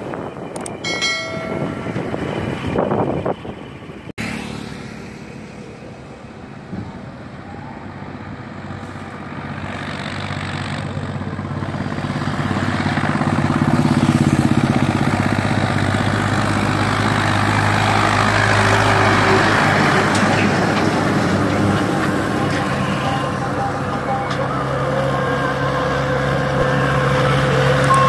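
Hindustan 50 tractor's diesel engine running steadily under the load of a heavily loaded sugarcane trolley, growing louder as it draws closer over about ten seconds and then staying loud. Before that, for the first few seconds, wind and road noise while following the tractor, ending in a sudden cut.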